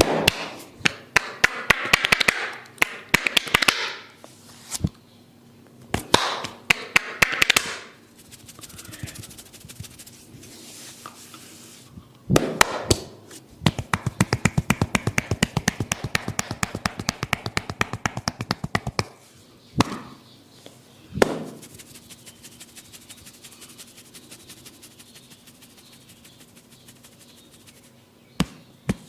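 Head massage: bursts of fast tapping and rubbing on the head, with a long run of quick, even taps in the middle, a few single knocks, and fainter steady tapping near the end.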